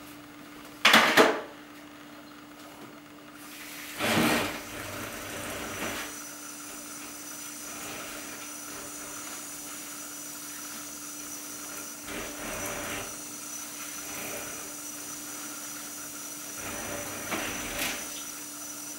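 A sharp metallic knock about a second in and another a few seconds later, then a kitchen faucet running steadily onto a metal baking sheet of seed-starting soil as it is wetted.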